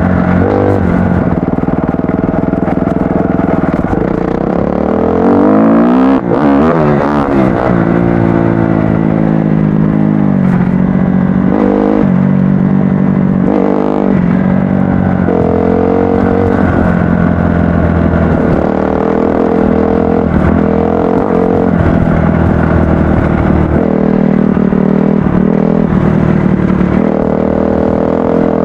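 Off-road dirt bike engine running under a riding load, its pitch rising and falling as the throttle is worked, with a run of quick rev swings about six seconds in and a few brief drops and pitch changes about halfway through.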